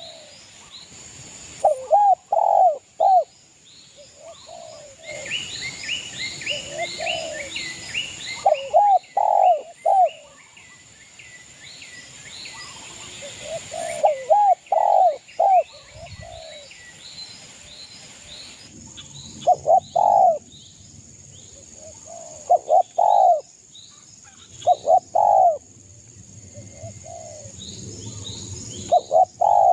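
Spotted dove (derkuku) cooing in short phrases of two or three notes, repeated every few seconds. Small birds chirp faintly between the phrases.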